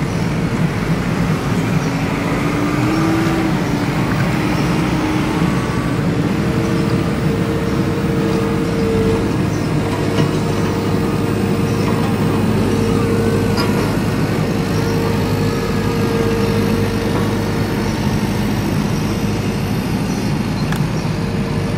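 LIANXING remote-control toy excavator running: a steady mechanical hum with whining motor tones that shift in pitch as it drives on its tracks and works its arm.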